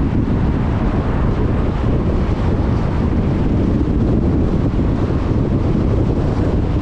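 Volkswagen Golf R (MK6) driving at a steady pace: an even rumble of engine and road noise with wind buffeting the microphone, and no revving or turbo flutter.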